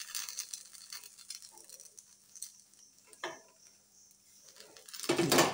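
Faint sizzling of a semolina snack frying in a little oil in a flat pan, with a few light taps and one clearer scrape of a steel spatula as it is turned over and pressed down.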